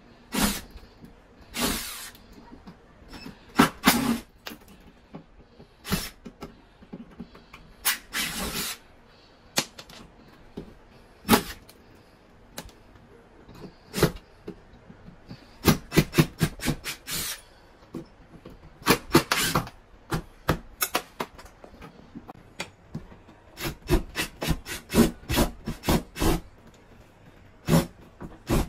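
Hercules 20V cordless drill run in short bursts against wooden wall studs, working screws in the framing, with sharp clicks and knocks that come singly and in fast clusters.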